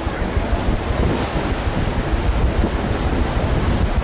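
Wind buffeting the microphone on the deck of a moving paddle steamer, in uneven low gusts over a steady rush of water.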